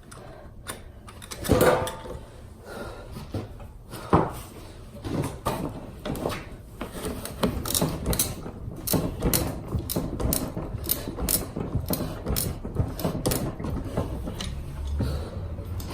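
Hand tools working on a scooter's rear wheel: a couple of louder metallic knocks, then a ratchet wrench clicking in a steady run of short strokes, about two clicks a second.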